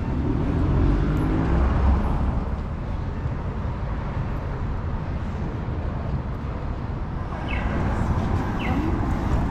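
Downtown street ambience: steady traffic noise with a heavy vehicle engine rumble in the first two seconds, and a few short, high, falling chirps near the end.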